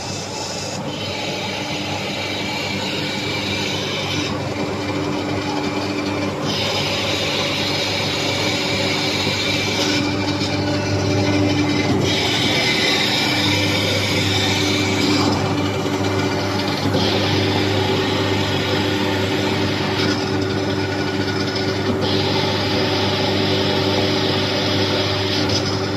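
Industrial machinery running with a steady electric hum, overlaid by a hissing, grinding noise that cuts in and out every few seconds.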